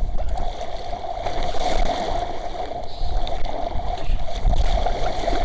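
Strong wind buffeting the microphone and water rushing past the hull of a small sailing yacht under way, with a steady hum.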